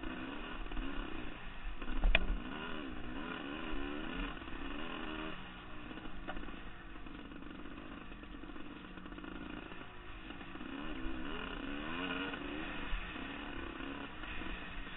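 Dirt bike engine running under way, its pitch rising and falling repeatedly as the throttle opens and closes, with a low rumble beneath. A single sharp knock stands out about two seconds in.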